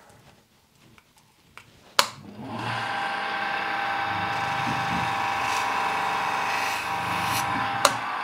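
A bench polishing motor with a 120-grit non-woven abrasive disc is switched on with a click and spins up to a steady whine of several pitches. A second sharp click comes near the end.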